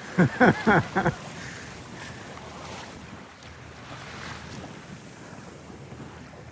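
Wind and water rushing around a small sailboat under sail, with wind buffeting the microphone. In the first second a person's voice gives four short, loud, falling calls.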